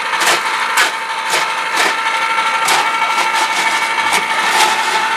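Electric ice cream maker churning, its motor giving a steady whine. Sharp cracks and knocks come from the ice-and-salt packing roughly every half second to second as the ice is poked with a stick.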